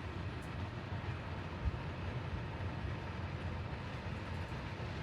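Ceramic space heater's fan running: a steady low rumble with a faint hiss above it.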